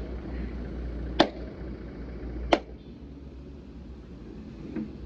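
Sledgehammer striking the steel leaf-spring and axle assembly of a truck: two sharp metal strikes about a second and a half apart, then a faint knock near the end.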